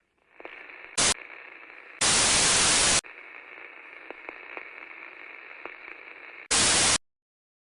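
Bursts of loud white-noise static: a brief one about a second in, a second-long one at two seconds, and a half-second one near the end. Between the bursts runs a fainter, thinner hiss with a few faint ticks. It cuts off suddenly just before the end.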